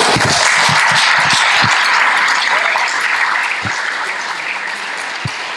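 Audience applauding: steady clapping from many hands that eases off slightly toward the end.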